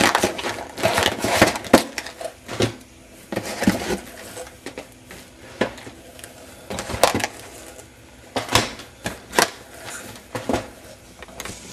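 Hands handling shrink-wrapped trading-card hobby boxes in a cardboard case: irregular clicks, taps and knocks with rustling, busiest in the first two seconds, then single sharp knocks every second or so.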